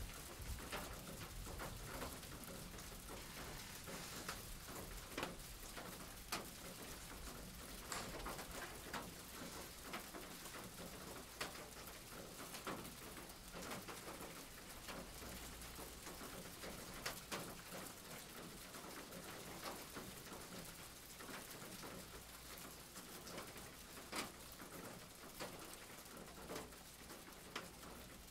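Steady rain falling, with irregular drip ticks scattered through it.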